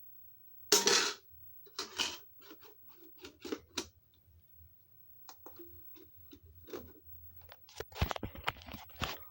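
Irregular handling noises: a string of short rustles, scrapes and clicks, the loudest about a second in and a dense flurry near the end.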